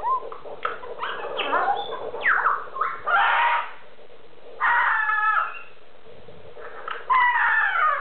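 Blue-and-gold macaw screaming and chattering: a few shorter calls in the first couple of seconds, then loud harsh squawks about three, five and seven seconds in.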